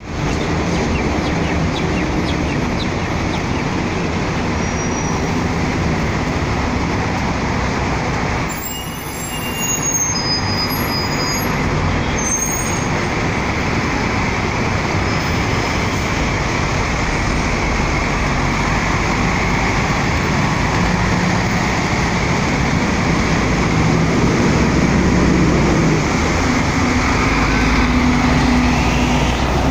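Diesel engine of a KMB Volvo Olympian three-axle double-decker bus running as the bus pulls away from its stand and passes close by, with surrounding road traffic. The engine grows louder and takes on a clearer droning note near the end.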